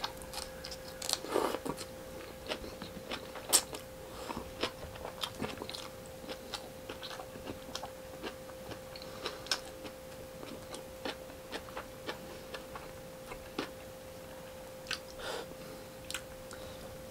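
Close-miked chewing and biting of food eaten by hand: irregular wet mouth clicks and crunches, the sharpest about three and a half seconds in, over a faint steady hum.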